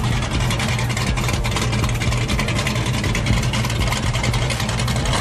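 A car engine idling steadily, a low, even drone with a wash of background noise over it.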